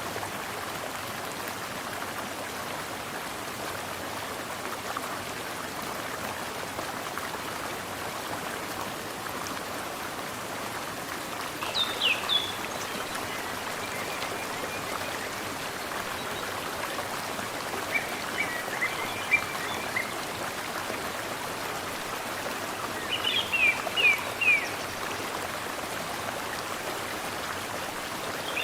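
Mountain stream flowing steadily, with a bird chirping in short high phrases three times over it, about twelve seconds in, around eighteen seconds and again around twenty-three seconds.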